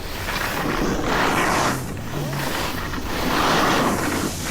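Edges scraping across packed snow in a run of turns, swelling and fading about once a second, with wind rushing over the microphone.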